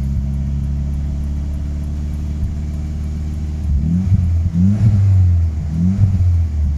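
VW T4 van engine held at slightly raised revs, running fairly steadily; a little over halfway through the revs are let down and it turns rough and uneven, surging up again and again. This is the misfire, which is milder at higher revs and worse at low revs.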